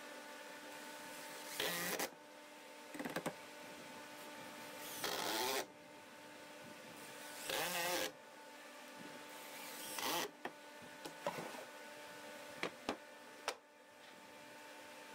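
Cordless impact driver driving construction screws into pressure-treated pine boards: about five short bursts of driving a couple of seconds apart, followed by a few sharp clicks and knocks near the end, over a steady low hum.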